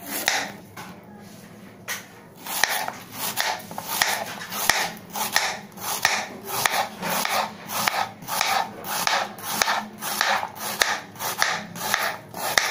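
Kitchen knife slicing a peeled raw banana into rounds on a plastic cutting board: a steady rhythm of short cutting strokes, about two or three a second, some ending in a sharp tap of the blade on the board. The cutting starts about two seconds in.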